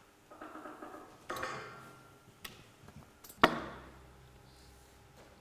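Hand work on organ parts during a restoration: two short scraping sounds, a few light clicks, then a sharp knock about three and a half seconds in that rings out briefly.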